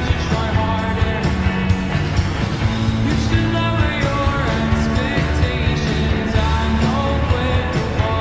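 Rock music with singing over a steady bass line and drums.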